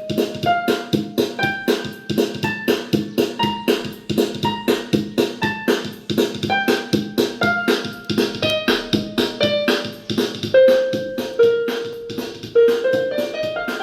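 Casio CTK-2550 61-key portable keyboard playing a melody in a piano-like tone over a steady beat from its rhythm accompaniment.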